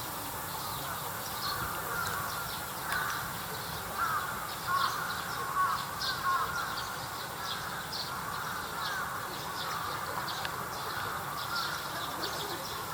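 Birds calling over one another, with many short rising and falling calls and quick chirps throughout, over a steady low background rumble.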